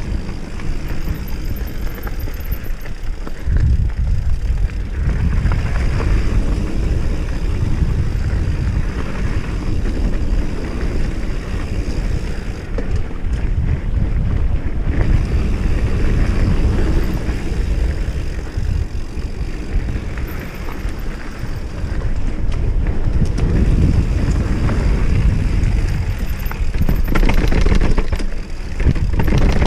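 Wind buffeting the microphone over the rumble and rattle of a GT Sensor mountain bike riding a dirt trail.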